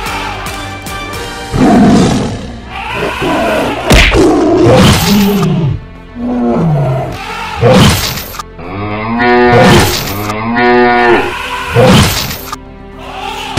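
Cattle mooing and bellowing, several calls that bend up and down in pitch, with loud hits at about four-second intervals, over background music.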